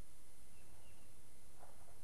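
Steady low hum and hiss of an old taped TV recording, with no music or speech; a faint short high chirp about a second in.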